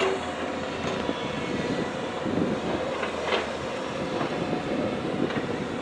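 Heavy construction machinery running steadily: diesel engines labouring under load.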